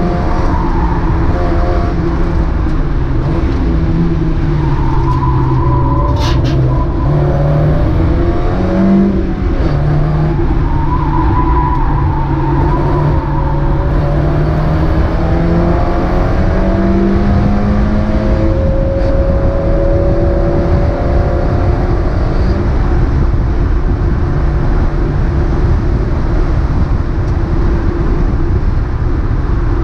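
Mazda MX-5 race car's four-cylinder engine running, its pitch rising and falling with speed over steady road and wind noise, then holding steadier and lower for the last several seconds.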